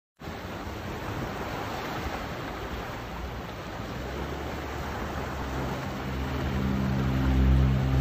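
Small waves washing over rocks at the shoreline: a steady hiss of surf. From about six seconds in, a steady engine hum rises under it and grows louder.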